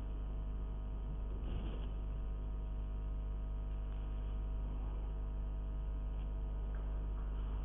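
Steady low electrical hum with a stack of even, unchanging tones, typical of mains hum on the recording. No other clear sound stands out.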